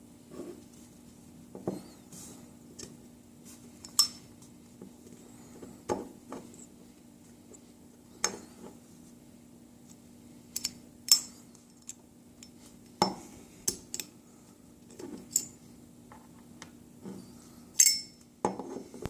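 AR-15 rifle parts being handled during disassembly and reassembly: about a dozen irregular, sharp metallic clicks and clinks, over a faint steady hum.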